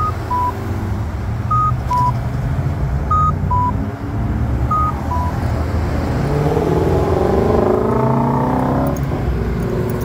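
Accessible pedestrian signal push-button unit sounding a two-tone electronic beep, high then low, four times about a second and a half apart, over steady traffic rumble. In the second half, car engines speed up as traffic pulls through the intersection.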